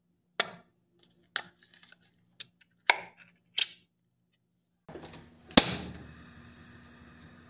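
A ring-pull tin being opened and worked with a knife: about six sharp metallic clicks and knocks over the first few seconds. Then a gas stove burner hisses steadily, with one loud sharp metallic clack about a second after the hiss begins.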